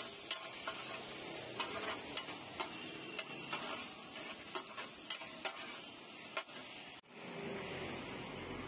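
Vegetables sizzling in a frying pan while a steel spoon stirs them, tapping and scraping against the pan about twice a second. About seven seconds in, the sound cuts abruptly to water being poured from a plastic bottle into the pan.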